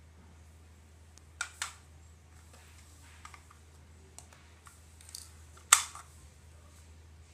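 Scattered sharp clicks and taps from handling small hard objects: a quick pair early, a few light ones, then one loud snap-like click a little over halfway through, over a low steady hum.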